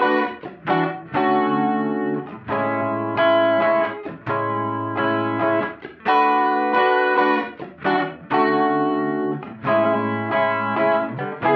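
Background music: a guitar playing a repeating pattern of held chords with short breaks between them.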